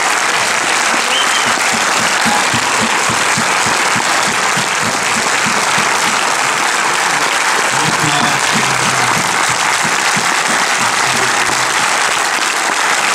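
Cinema audience applauding steadily, with music playing faintly underneath.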